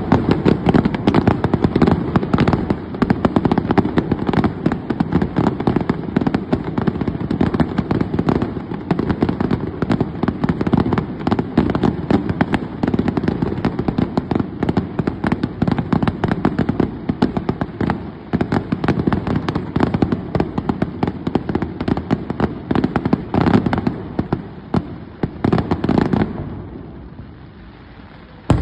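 Fireworks going off in a dense, rapid barrage of bangs and crackles, tailing off about two seconds before the end.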